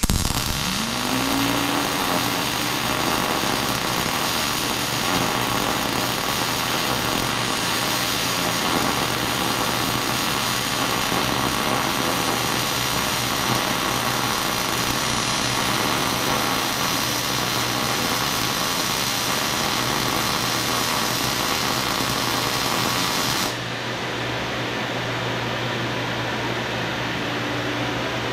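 Wire-feed welding arc running steadily for about 23 seconds over the steady whir of a Lincoln Electric Mini Fume X-tractor's fan drawing off the weld smoke. The arc stops abruptly near the end and the extractor runs on alone, a little quieter.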